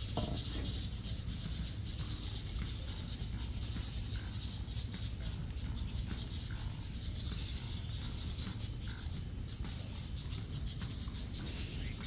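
Steady high-pitched chirring of insects such as crickets, in rapid pulses, over a low steady rumble.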